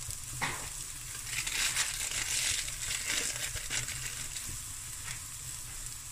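Diced vegetables frying with a steady sizzle in a stainless steel pot. Over it, a plastic bag of salt crinkles irregularly as it is handled and shaken over the pot, loudest from about one to four seconds in.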